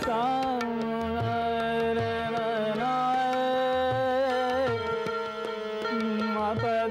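Male ghazal singer holding long sung notes that slide from one pitch to the next, with no clear words, over soft tabla strokes.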